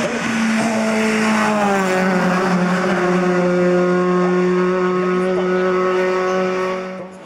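Race-prepared Volkswagen Golf Mk1 hill-climb car in the 2-litre class at full throttle, its engine note held high and steady. The pitch drops once, about two seconds in, as the car passes and pulls away. The sound cuts off abruptly near the end.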